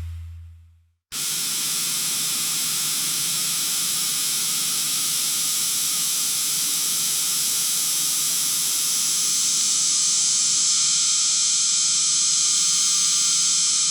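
A steady, even hiss, bright and high-pitched, that starts abruptly about a second in, after a short fade to silence.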